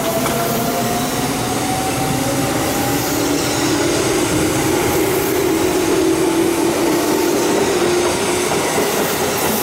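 Electric commuter train accelerating: the traction motor and gear whine climbs steadily in pitch over the rumble of wheels on the rails.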